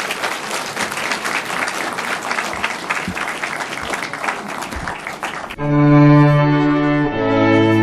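Audience applauding steadily. About five and a half seconds in, the applause cuts off abruptly and music with long held low notes begins.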